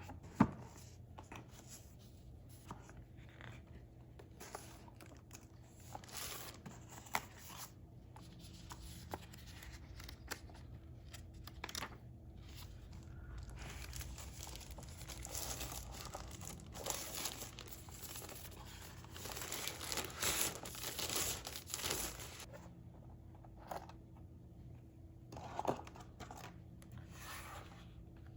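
Packaging being unwrapped by hand: plastic and paper crinkling and tearing, with scattered clicks and knocks. There is a sharp knock right at the start, and the rustling is heaviest about two thirds of the way through.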